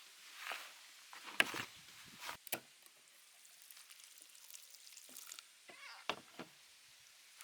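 Chicken feet being mixed by hand with flour and seasoning in a bowl: short rustling, stirring noises with several sharp knocks, the loudest about a second and a half in.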